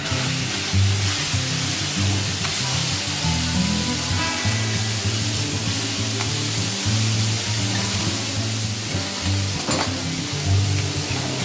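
Lobsters and shimeji mushrooms sizzling in oil on a hot teppanyaki griddle, a steady hiss, with a metal spatula clinking against the plate now and then, most clearly near the end. Background music with a low bass line plays underneath.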